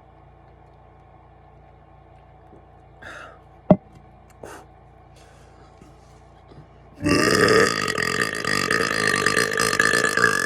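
A man's long, loud burp, a soda burp from carbonated Dr Pepper, starting about seven seconds in and still going at the end. Before it is a quieter stretch broken by one sharp click about halfway through.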